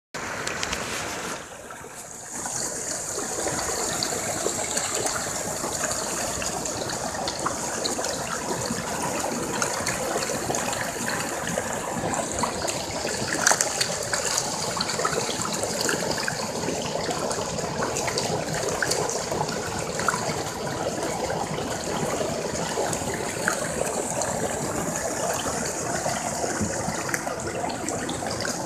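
Steady rush of water with many small splashes from a dense crowd of tilapia churning at the surface of a flowing-water pond.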